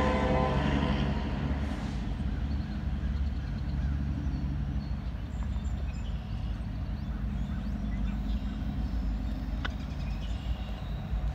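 Approaching diesel locomotive: a chorded horn blast trailing off about a second in, then the engine's steady low rumble.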